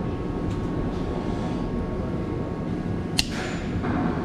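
Handling and rubbing noise as a rubber fuel hose is worked onto a fitting, over a steady low rumble, with one sharp click a little after three seconds in.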